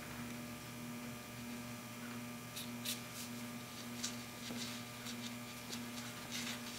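Steady low electrical hum, with a few faint light clicks and rubs from a gloved hand working assembly lube onto the valve stems of an aluminum LS cylinder head.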